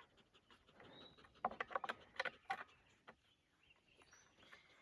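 A golden retriever panting faintly, a quick run of breaths about a second and a half in, with quiet around it.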